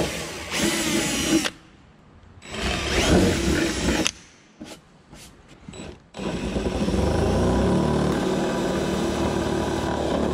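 Power drill running in bursts: two short runs with the motor speed rising and falling, a few clicks, then a long steady run from about six seconds in.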